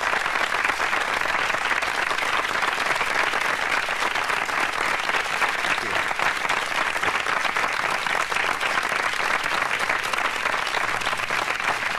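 Concert audience applauding steadily, an even wash of clapping, heard on a live recording played from vinyl.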